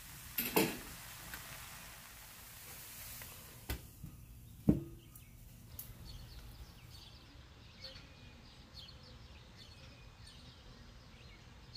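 A few clicks and knocks of kitchenware, the loudest about five seconds in with a short ring, as a glass lid is set on the pan of rice. From about seven seconds on, birds chirp.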